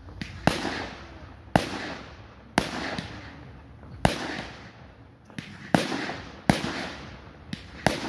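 Aerial fireworks bursting overhead: about seven sharp bangs, roughly one a second, each trailing off over about a second, with a couple of fainter pops between them.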